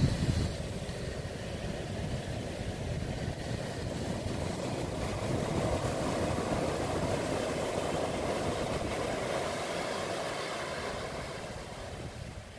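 Ocean surf on a sandy beach: a steady low rushing noise that swells around the middle and eases off near the end.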